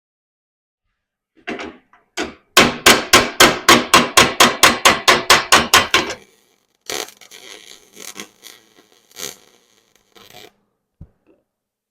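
A hammer striking steel in a quick, even run of about fifteen loud blows, about four a second, then lighter scraping and scattered knocks on the metal of a Yamaha Grizzly 660 ATV frame under repair.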